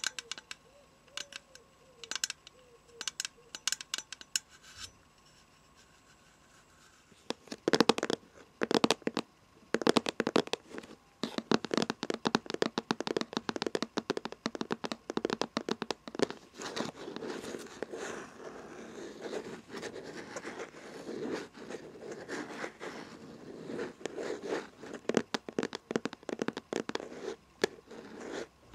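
Fingernails tapping and scratching on an object. A few separate taps come first; from about seven seconds in they turn into fast, continuous scratching and tapping.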